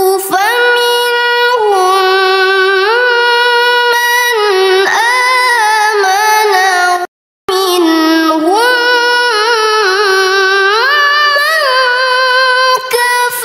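A young female reciter's melodic Quran recitation (tilawah) into a microphone: long, ornamented held notes that slide and step between pitches. There is a brief, complete break about seven seconds in.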